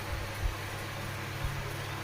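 Electric table fan motor running with the oscillation engaged, a steady low hum, freshly fitted with new bushes and running smoothly. Two faint low bumps come about a second apart.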